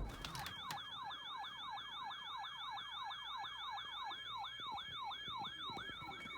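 Electronic siren in a fast yelp: a pitch that drops sharply and repeats, a little under four sweeps a second.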